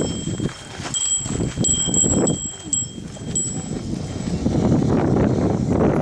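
A small hiker's bear bell jingling with each step, its short high rings stopping about three and a half seconds in. Strong wind buffets the microphone, louder in the second half.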